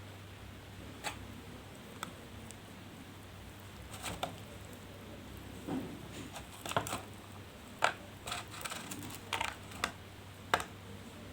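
Scattered light clicks and taps, about a dozen, mostly in the second half, over a low steady hum.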